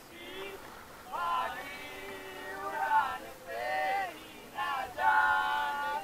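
Singing: a voice holding long notes that slide up and down in pitch, sung in several phrases of about a second each with short gaps between.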